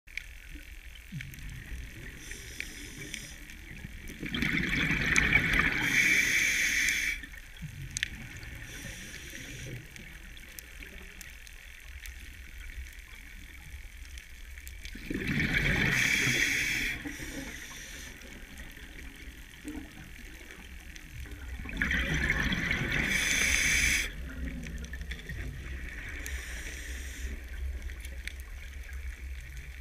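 Underwater sound heard through a camera housing: a steady low rumble, broken three times by a loud rush of bubbles lasting two to three seconds, the diver's exhaled breath.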